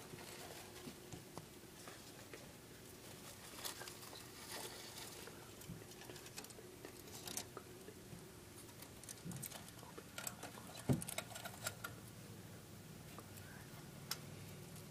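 Faint scattered scratching, rustling and small clicks of dwarf hamsters moving about in cage bedding, with a sharper knock about eleven seconds in. A faint steady hum runs underneath.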